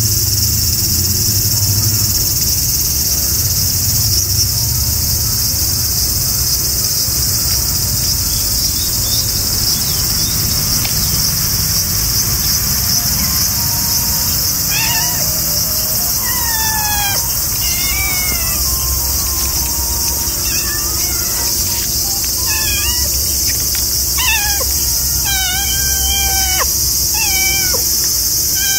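A steady, high-pitched insect chorus runs throughout. From about halfway on, a cat gives a string of short, falling meows.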